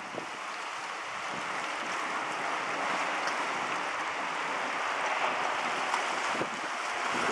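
Hydrofoil passenger boat approaching: a steady rush of engine noise and churned water that grows gradually louder.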